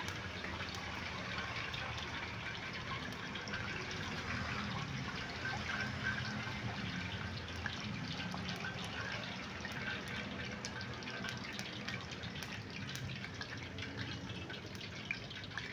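Cooking oil heating in a pan over a small twig-and-paper fire, a steady soft hiss with many faint crackles as the oil starts to bubble. A low steady rumble of roadside traffic runs underneath.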